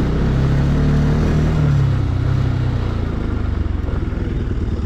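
Motorcycle engine running steadily as it is ridden, its pitch rising a little in the first couple of seconds, then easing back and holding steady.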